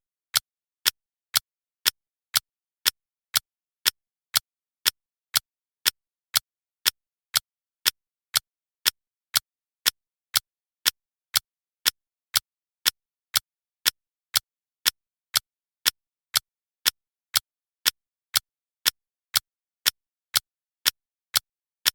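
Clock ticking steadily, about two sharp ticks a second with silence between them.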